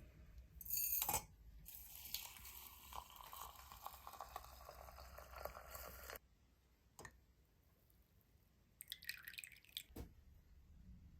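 Liquid, likely the tea, poured into a container, its pitch rising steadily as the container fills, stopping abruptly about six seconds in. A short clatter comes just before the pour, and a few light clicks and a brief rattle come after it.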